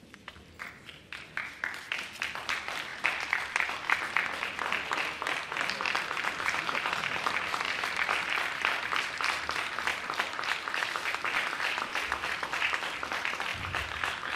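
Crowd applauding: scattered claps that build within a few seconds into steady applause.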